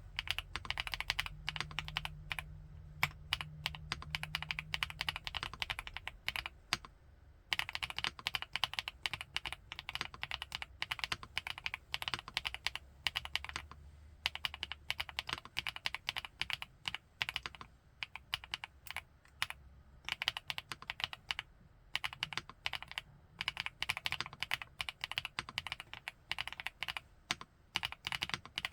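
Typing on an FL-ESPORTS Geo75 mechanical keyboard fitted with Kailh x Funkeys BCP switches: quick keystrokes in runs of several seconds, with brief pauses between runs.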